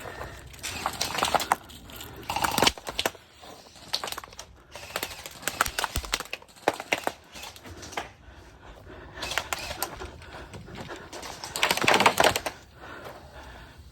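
Airsoft blasters firing in several bursts of rapid clicking shots.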